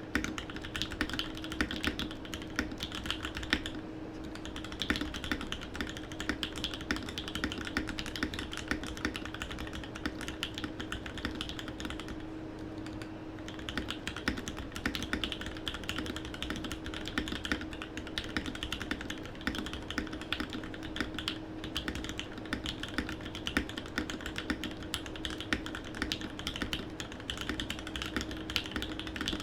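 Fast continuous typing on a Think6.5 mechanical keyboard in a polycarbonate case with Gateron Black Ink V2 linear switches: a dense run of keystroke clacks, with short pauses about four seconds in and near the middle. A faint steady hum sits underneath.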